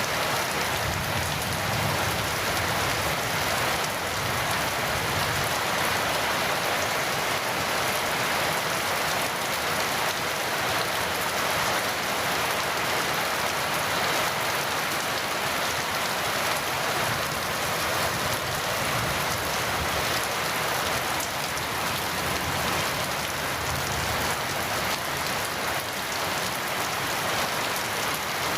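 Heavy rain falling steadily: a dense, even wash of drops with no single drops or thunder standing out.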